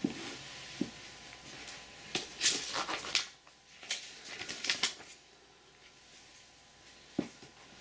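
Paper leaflet and thin protective packing sheet rustling and crinkling as they are handled and lifted off a new laptop's keyboard, in two spells about two and four and a half seconds in, with a couple of light knocks.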